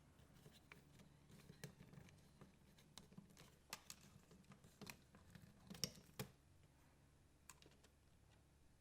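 Faint, irregular small clicks and taps of hands working on a Philips DCC recorder's cassette mechanism while unplugging cables from its underside, the loudest about six seconds in, then near silence.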